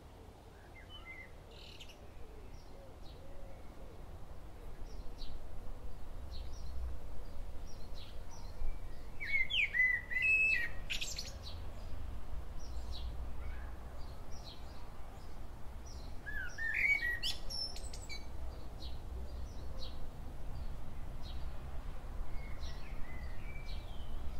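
Birds chirping and singing outdoors, many short calls with two louder ones about a third and two thirds of the way through, over a steady low rumble. The sound fades in over the first few seconds.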